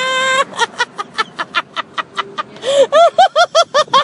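A woman laughing hard: quick breathy bursts at first, then about three seconds in a fast run of high-pitched 'ha-ha' giggles.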